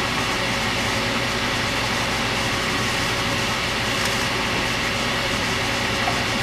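Steady mechanical hum with an even rushing noise, as from a running fan, holding level without change.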